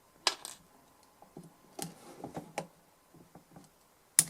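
Scattered light clicks and scrapes of hand-work on a small metal DI box, a wire being worked inside it to reach debris, with a cluster of clicks midway and one sharp click near the end.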